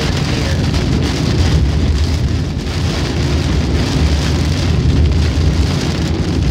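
Heavy rain pelting a car's windshield and roof, heard from inside the moving car, over a steady low rumble of tyres and engine on the wet highway.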